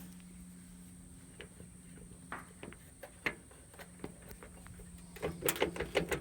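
Scattered light metallic clicks and taps of hand tools. From about five seconds in, a ratchet wrench clicks rapidly as it turns the tractor's valve cover bolts.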